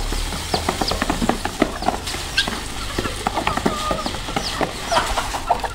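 A flock of chickens pecking at feed, with many quick pecking clicks and short clucks and chirps.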